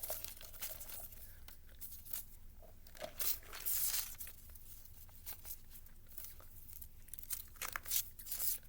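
Paper slips being scrambled around by hand: irregular rustling and crinkling, with louder flurries about three seconds in and again near the end.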